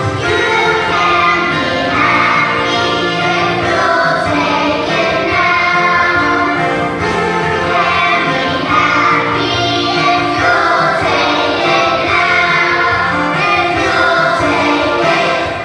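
Children's choir singing a song in unison over a musical accompaniment, held notes with no breaks.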